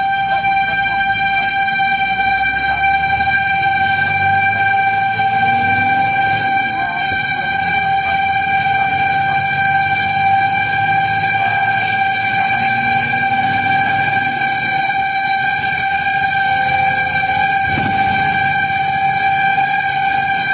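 Fire engine's warning siren sounding one steady, unbroken tone, with the truck's engine running underneath.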